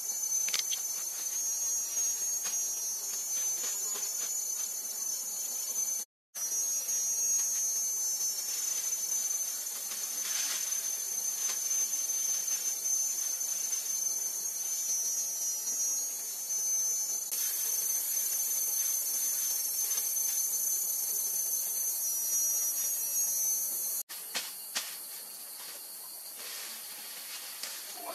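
A steady, high-pitched chorus of forest insects buzzing, with faint rustling and crackling of dry grass stems being handled and tied. The sound cuts out for a moment about six seconds in and turns quieter after a break near the end.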